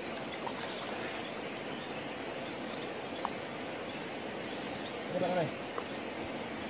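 Insects chirping in a steady, regular high-pitched pulse, a little under twice a second, over constant background noise.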